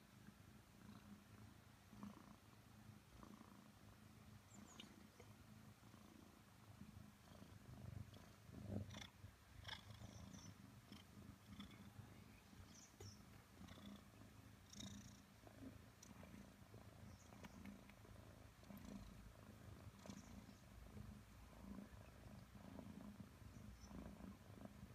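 Maine Coon kitten purring, faint and steady, while being stroked on the head and chin. A few soft clicks come through near the middle.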